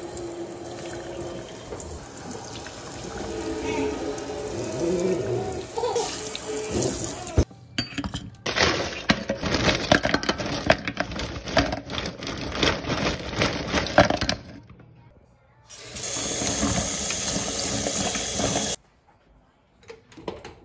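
Water from a kitchen faucet sprayer running into a stainless steel sink, cutting off and starting again a few times. In the middle stretch it splashes and patters as raw chicken pieces are rinsed and handled under it.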